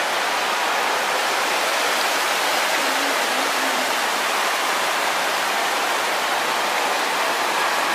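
Decorative indoor waterfall: water falling and splashing in a steady, even rush.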